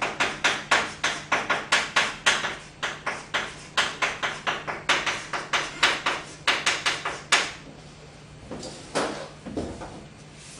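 Chalk writing on a blackboard: quick tapping, scratching strokes, about four a second, as kanji are written, stopping about seven and a half seconds in. A couple of softer scuffs follow near the end, over a faint steady low hum.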